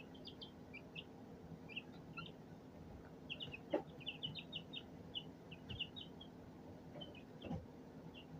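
Young chicks peeping: many short, high chirps coming irregularly. There are two soft knocks, one near the middle and one near the end.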